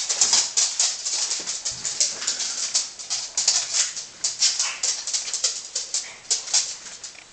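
An abrasive worked by hand against the metal of a miner's lamp being cleaned up, making quick, uneven scratchy strokes, several a second.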